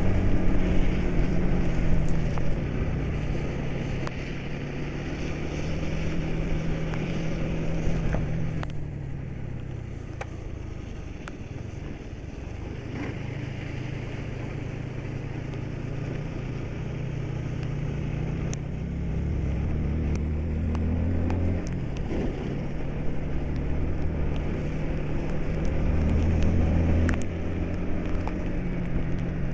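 Bus engine heard from inside the cab, running under load with its pitch climbing as it revs and dropping back several times.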